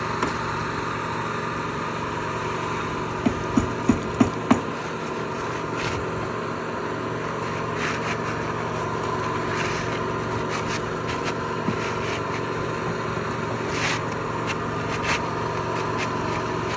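Roofing work on asphalt shingles: a run of five quick knocks about three seconds in, then scattered scraping and rubbing as a shingle is worked into place, over a steady engine drone.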